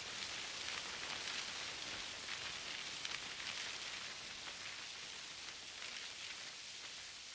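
Faint recorded rain sound in the stage soundscape: a steady hiss with light, scattered patter and no melody.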